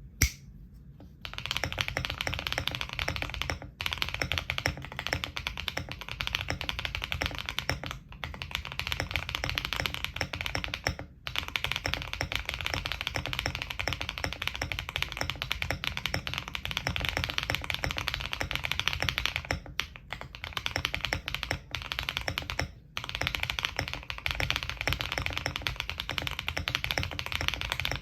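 Fast, continuous typing on a Zuoya GMK81 mechanical keyboard with HMX Xinhai switches, a polycarbonate plate, full foam dampening and PBT keycaps, giving the soft, muted keystrokes keyboard builders call creamy. A single sharp click comes just at the start, and the typing pauses briefly several times.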